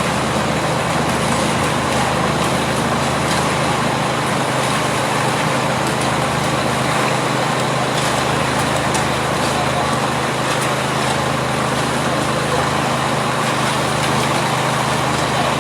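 An engine running steadily at a constant speed, with a steady low hum under a broad, even noise.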